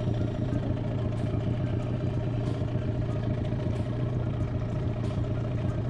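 Small outboard motor on an inflatable boat running at a steady speed: an even, unbroken engine drone.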